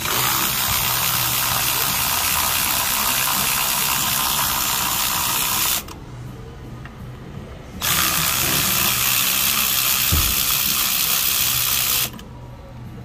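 A power ratchet running in two long runs, about six seconds and then about four seconds, with a short pause between, over a faint steady low hum.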